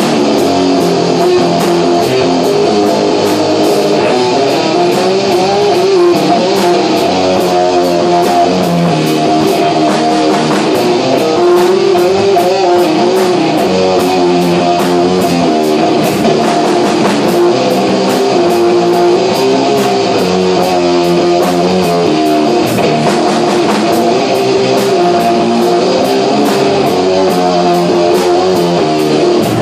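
Live rock band playing, guitars to the fore over bass, with a steady beat throughout.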